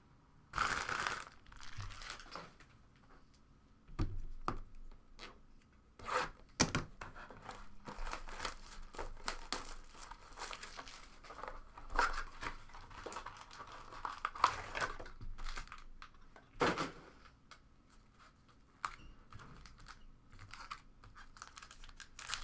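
Plastic wrapping on a trading card box and its packs being torn open and crinkled, in irregular bursts of rustling with sharp tearing sounds.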